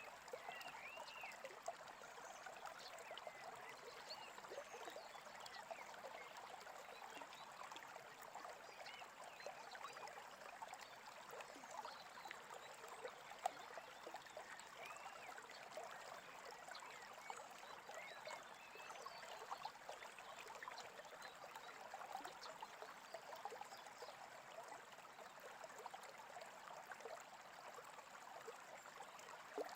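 A small babbling stream running steadily, faint, with occasional short bird chirps over it.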